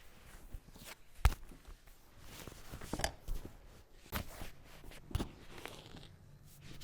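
Hands working during a head massage: soft rubbing and brushing on hair and skin, with one sharp click about a second in and a few softer taps later.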